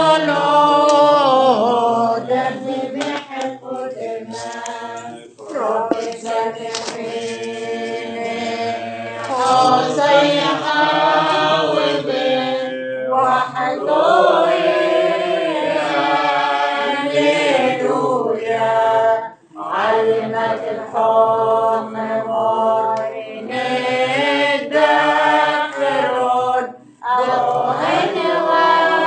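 Voices chanting a Syriac Orthodox liturgical hymn in long, melismatic sung phrases, broken by short pauses about 5, 19 and 27 seconds in.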